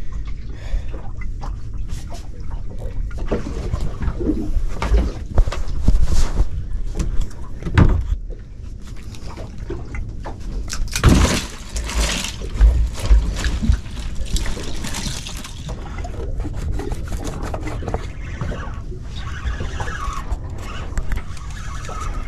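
Water sloshing and slapping against the hull of a small boat drifting at sea, with irregular knocks and rustles.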